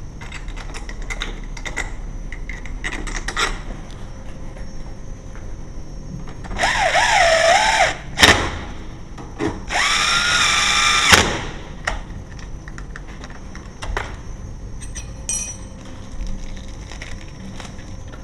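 Cordless drill-driver driving screws into the faceplate of a mortice lock on the door edge: two runs of the motor, each about a second and a half long, the first wavering in pitch and the second steadier. Light clicks and knocks of handling come between and around them.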